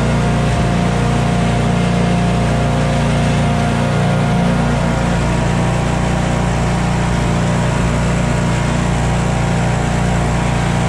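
John Deere stand-on commercial mower's engine running steadily at a constant pitch as the mower drives along.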